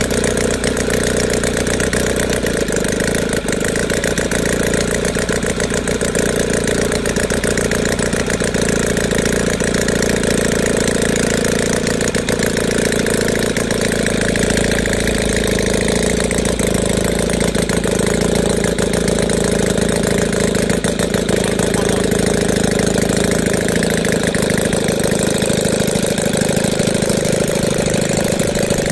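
Roto Motor 85cc flat-twin four-stroke gas engine running on a test stand, turning a propeller at a steady speed.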